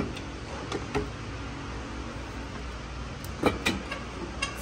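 Scattered metal clinks and knocks as the cylinder head is worked loose and lifted off the engine block by hand, the loudest about three and a half seconds in, over a steady low hum.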